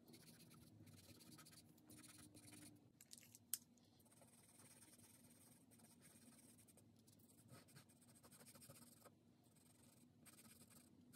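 Faint scratching of a pastel pencil stroking across Clairefontaine Pastelmat paper, with one sharp tick about three and a half seconds in.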